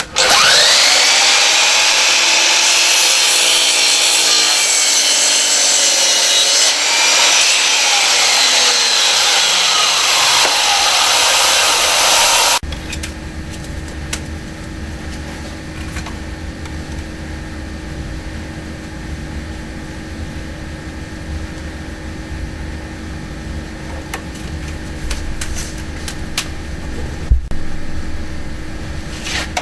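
DeWalt sliding compound mitre saw spinning up and cutting through a wooden rafter, a loud whining saw noise that stops abruptly after about twelve seconds. Then a steady low hum, with a few knocks near the end.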